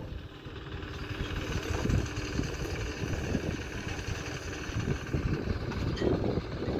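Construction-site background noise: a steady, engine-like rumble with a hiss over it.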